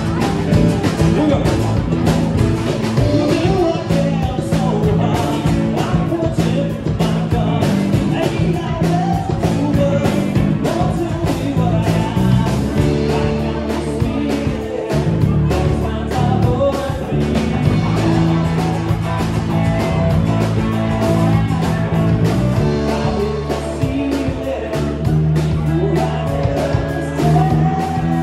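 Band playing an up-tempo rock and roll song with a sung vocal over a steady drum beat.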